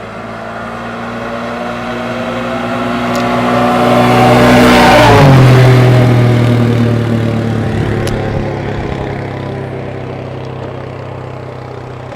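A car engine grows louder to a peak about five seconds in, drops sharply in pitch there, then fades away.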